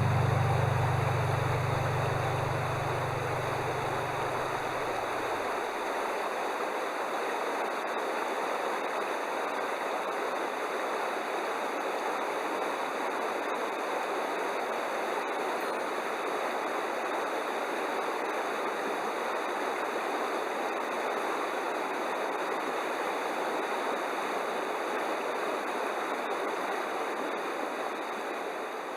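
Stream water running steadily, an even rushing noise, with the last of the background music fading out in the first few seconds.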